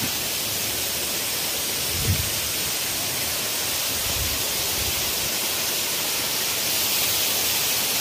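Steady rushing hiss of a waterfall pouring down a rock face, a little louder near the end, with two soft low thumps about two and four seconds in.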